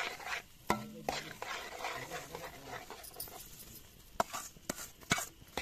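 Roasted semolina being tipped into hot sugar syrup in a steel pan, with a rustling sizzle, and a metal spoon striking the pan in several sharp clinks.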